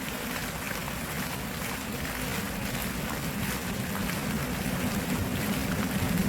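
Steady rush of a flowing stream, with a low drone growing louder toward the end.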